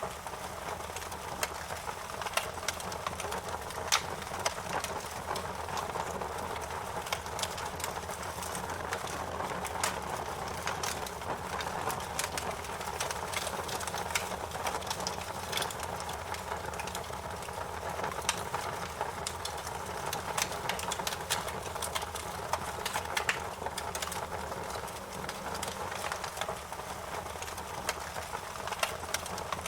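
Wood fire burning steadily, with a constant rushing of flames and frequent sharp crackles and pops scattered irregularly throughout.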